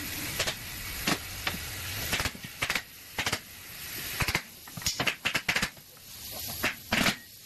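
Pallet-making machinery working: irregular sharp knocks and clacks, with short hissing swells between them.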